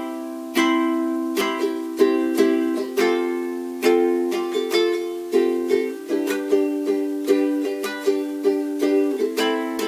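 Cordoba ukulele strummed in a steady rhythm as a song's introduction, the chord changing about six seconds in and again near the end.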